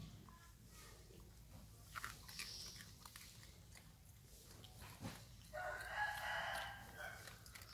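A rooster crows once, about five and a half seconds in, a single drawn-out call lasting about a second and a half. A few soft clicks and smacks come before it.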